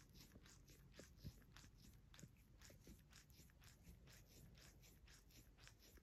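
Faint, rhythmic rasping of a cat licking a person's bare skin, about four licks a second, with a soft bump about a second in.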